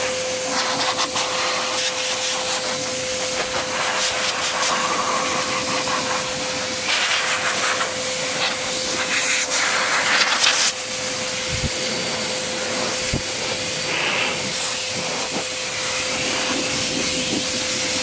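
Bruhl motorcycle dryer blower running, blasting air through its hose over a wet motorcycle: a steady rushing hiss with a constant motor whine. The rush grows louder for a few seconds about halfway through, as the nozzle works close to the bike, then drops back.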